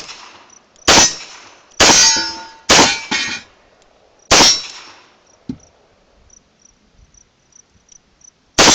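Smith & Wesson 586 .357 Magnum revolver fired five times, four shots about a second apart, then a pause of about four seconds before the last. Several shots are followed by a metallic ringing that dies away.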